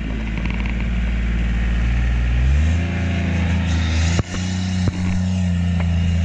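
Polaris Ranger utility vehicle's engine running steadily, then revving up a step about two and a half seconds in as it pulls uphill. Two sharp knocks come less than a second apart just after four seconds.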